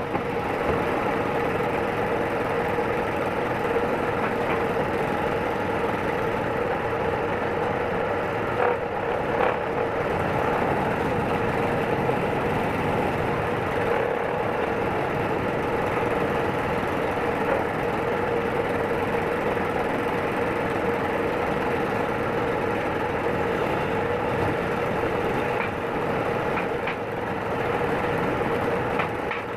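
Electric motor of a woodworking machine running steadily, with a constant hum and a few faint clicks.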